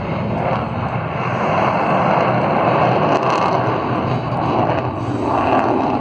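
Loud, steady jet noise from an F/A-18 Super Hornet's twin turbofan engines in flight.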